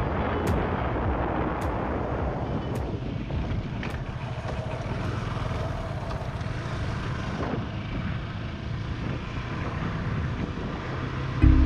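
Wind rushing over the microphone of a moving motorcycle, over a steady low engine and road rumble.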